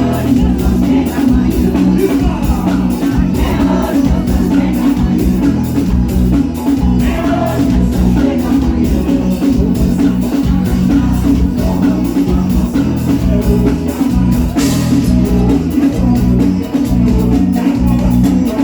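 Loud forró dance music with a steady, driving beat and heavy bass.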